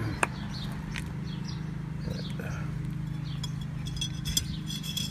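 Metal clinks from handling a steel canister-type oil filter housing, with one sharp clink about a quarter second in and lighter taps after it. A steady low hum runs underneath, and short high chirps come and go, most of them in the second half.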